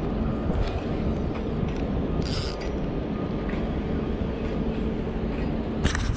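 Spinning reel being cranked close up, its gears whirring steadily while a hooked fish is reeled in against a bent rod. A brief hiss comes about two seconds in, and a sharp click near the end.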